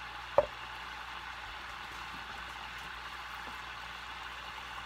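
Raw ground-pork patties sizzling gently in butter in a skillet on low heat, a steady soft hiss. A single sharp knock sounds about half a second in.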